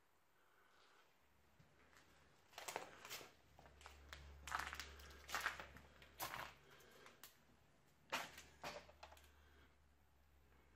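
Footsteps crunching over fallen debris on a floor, a string of irregular steps starting about two seconds in and stopping near the end, over a faint low hum.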